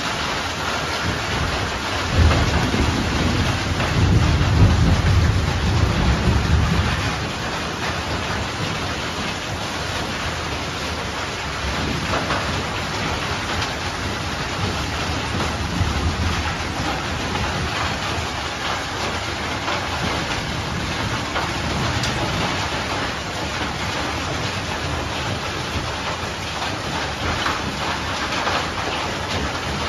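Heavy rain with hail pelting down in a windy thunderstorm. A clap of thunder breaks about two seconds in and rumbles on for about five seconds.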